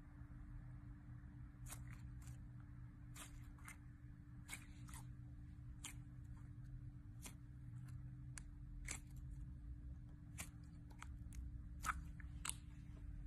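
Clear glitter slime with sequins being squeezed and pressed by hand, giving off scattered sharp little clicks and pops, one or two a second at irregular intervals. A steady low hum runs underneath.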